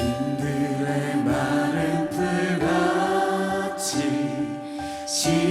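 A worship band and singers performing a slow praise song: voices singing together over sustained keyboard chords.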